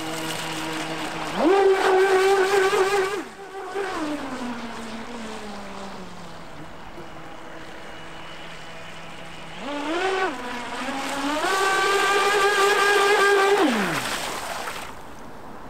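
Joysway Monster Cat RC catamaran's electric motor whining in two full-throttle bursts. Each one rises sharply, holds a steady high pitch for two or three seconds, then falls away as the throttle is released, with a brief blip of throttle between them.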